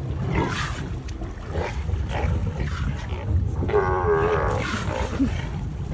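A colony of Steller sea lions calling from the rocks: several separate hoarse roars one after another, with one long wavering roar about four seconds in.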